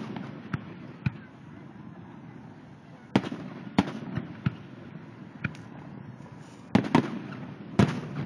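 Aerial firework shells bursting: a string of sharp bangs at irregular intervals, some faint and some loud, with the loudest coming about three seconds in and again near the end.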